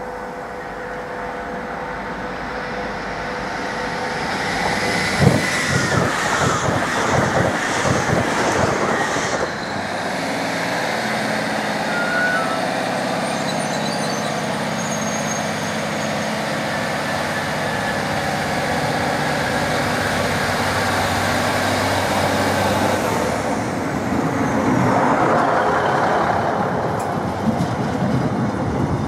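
A train moving through a railway station. Its wheels knock rhythmically over rail joints for a few seconds, then it runs on with a steady drone and a high whine that falls in pitch near the end.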